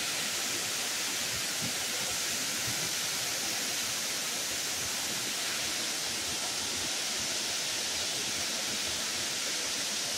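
Steady rushing roar of a tall waterfall, the water plunging off a rock overhang and crashing onto boulders below.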